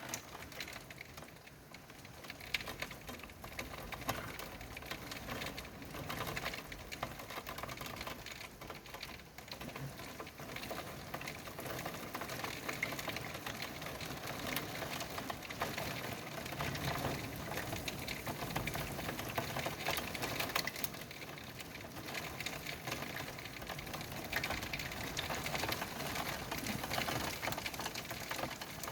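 Heavy thunderstorm rain pattering steadily, a dense rapid ticking of drops.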